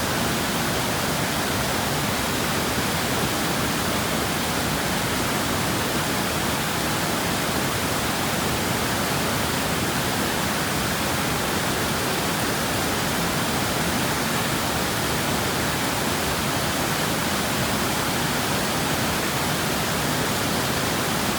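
Waterfall on a mountain creek, water rushing loud and steady without a break.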